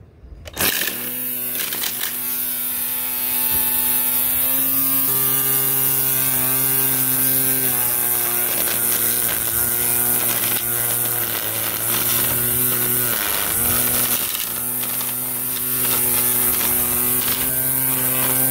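Greenworks 40 V cordless string trimmer in edger mode, its electric motor starting about a second in and then running steadily at high speed with a hiss from the spinning line cutting the grass edge along the concrete. Its pitch sags briefly a few times as the line bites into the grass.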